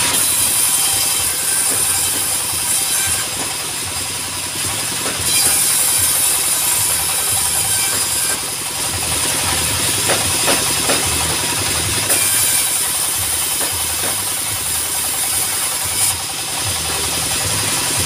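Sawmill saw driven by a single-cylinder diesel engine, running steadily, with a high-pitched hiss from the blade cutting mahogany that comes on three times, a few seconds each.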